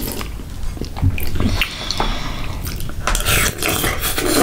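Close-miked ASMR eating sounds: chewing and wet mouth smacking, with sharp clicks as a metal spoon scrapes and taps inside a glass bowl.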